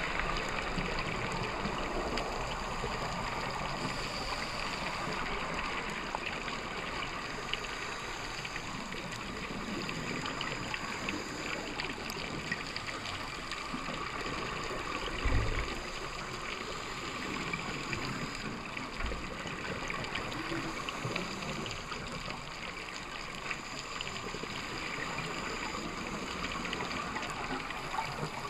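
Underwater ambience heard through a camera's waterproof housing: a steady watery hiss with fine crackling throughout. A dull low thump comes about halfway through, and a fainter one a few seconds later.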